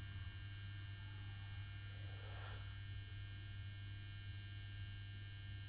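Steady electrical mains hum with a buzzy edge, and two soft breaths, about two and a half seconds in and again near the end.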